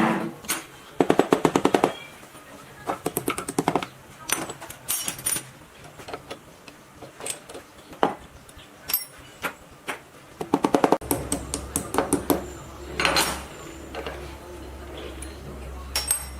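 Runs of rapid mechanical clicking from a workshop tool, each lasting about a second, with scattered single metal knocks and clinks between them.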